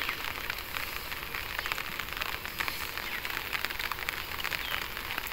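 Rain falling steadily on water, a dense patter of small drops.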